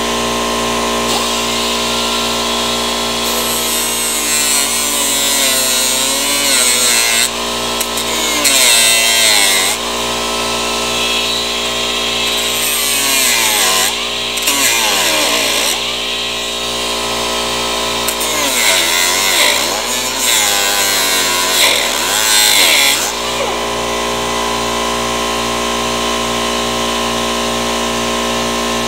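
An electric power tool running steadily. From a few seconds in until near the end it bears on the work in several passes: a bright hiss rises over the motor, and its pitch sags and recovers under load.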